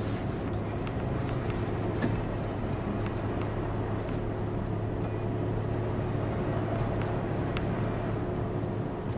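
Toyota FJ Cruiser's 4.0-litre V6 running at a steady low pitch while driving slowly on a muddy dirt road, heard from inside the cabin, with mud-terrain tyre and road noise and a few scattered small clicks and knocks.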